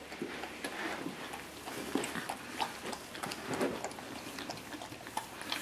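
A dog licking ice cream out of a small cup, a run of quick, irregular wet licks and smacks.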